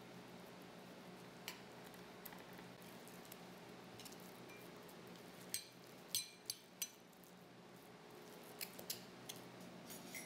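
A spoon stirring egg and rolled oats into a batter in a ceramic bowl, clinking against the bowl's side: a few scattered clinks, then a quick run of ringing clinks about six seconds in and more near the end.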